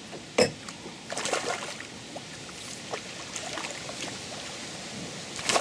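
Water splashing as a small grass carp thrashes at the surface while it is played on a feeder rod: a sharp splash about half a second in, a run of splashes just after a second, and the loudest burst near the end.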